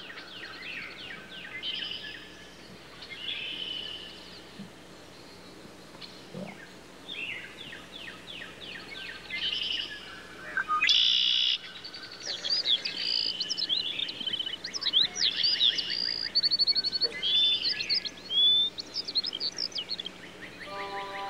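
Several birds chirping and singing, with rapid trills and short whistled notes. The calls get busier and louder in the second half.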